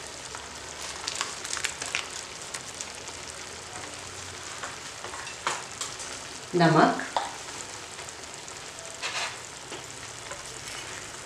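Masala paste frying in oil in a non-stick kadai, sizzling steadily with scattered small pops, as the raw paste is roasted until it releases its oil.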